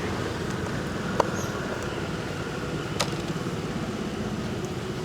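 Steady low rumble of a motor vehicle engine running, with two sharp clicks, one about a second in and one about three seconds in.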